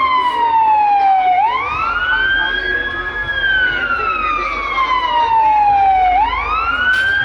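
Siren wailing in slow cycles: the pitch sweeps quickly up, holds briefly, then slides slowly down over about three seconds, repeating roughly every five seconds. A short click sounds near the end.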